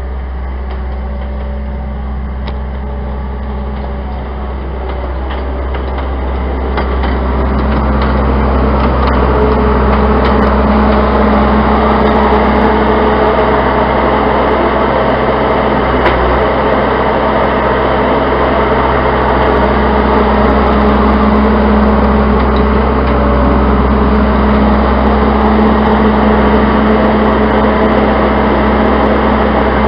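Case 90XT skid-steer loader's diesel engine running steadily under load, growing louder about six seconds in and then holding an even drone.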